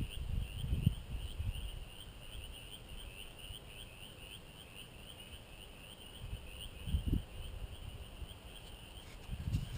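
An insect chirping in a steady, even rhythm, about two and a half high chirps a second. Low rumbles come through in the first second, about seven seconds in, and at the end.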